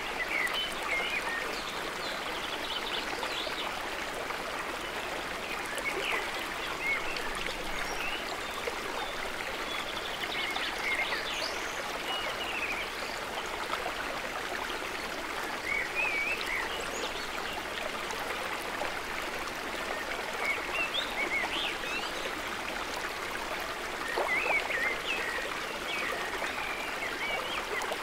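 Shallow woodland stream running over rocks, a steady rushing babble, with small birds chirping briefly every few seconds.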